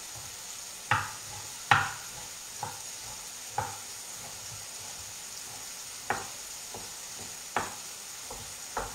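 A kitchen knife chopping raw pumpkin on a wooden cutting board: about seven sharp, irregular knocks, the loudest near the first two seconds. Under them runs a steady hiss of sausage and onion sizzling in a frying pan.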